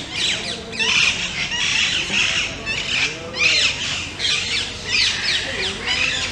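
A flock of birds squawking and chattering in rapid, overlapping bursts of short, high calls.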